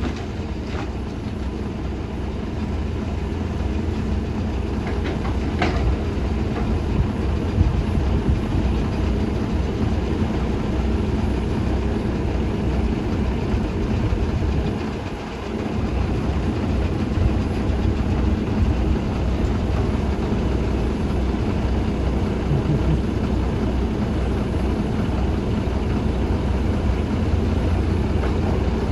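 Excavator's diesel engine running steadily under load, a continuous low rumble that eases briefly about halfway through.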